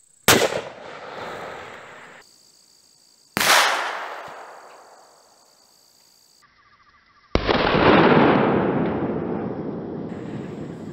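Two shots from a custom .308 Remington 700 bolt-action rifle, each a sharp report followed by a rolling echo that dies away over a couple of seconds. About seven seconds in comes a third sudden bang, followed by a loud rumble that lasts about four seconds and stops abruptly.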